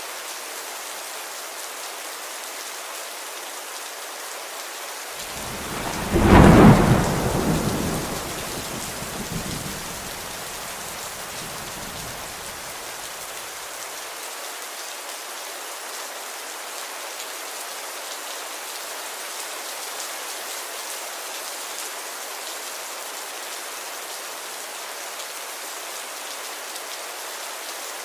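Steady rain falling, with a single clap of thunder about six seconds in that rolls on and fades away over several seconds.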